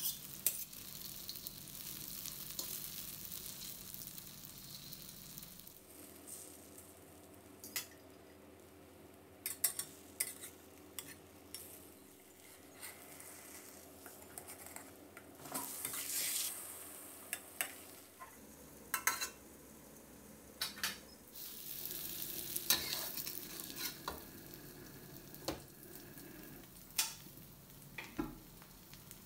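Thai omelette of egg, shrimp-paste chili and cha-om shoots frying in oil in a metal wok over medium-low heat, with a steady sizzle. A metal spatula clicks and scrapes against the wok many times.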